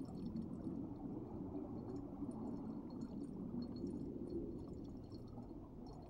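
Faint underwater stream ambience: a low, even rush of moving water with scattered small ticks, easing slightly near the end.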